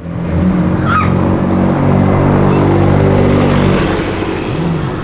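Porsche 911 Turbo's twin-turbocharged flat-six accelerating past and pulling away, a steady engine note that fades toward the end.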